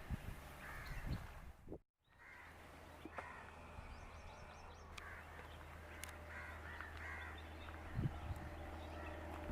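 Crows cawing several times over a steady low rumble; the sound cuts out completely for a moment about two seconds in.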